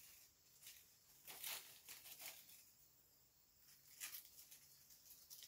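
Faint, brief rustles of artificial leaf stems being pushed into a basket arrangement, a few times over.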